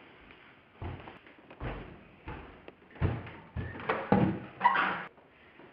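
A few heavy footsteps, then a door being handled and shut, with a couple of loud thuds near the end.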